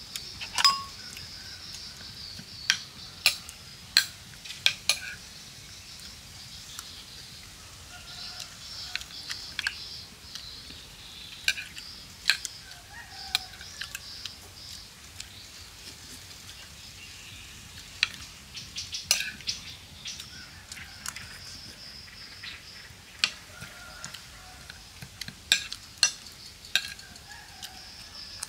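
Metal spoon clinking and scraping on a ceramic plate in sharp, scattered clicks as boiled duck egg and sauce are spooned up, with a steady high hiss behind.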